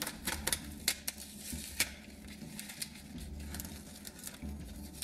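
Blue masking tape being peeled up off a model road surface, giving a run of irregular crackling ticks as it pulls away, busiest in the first two seconds.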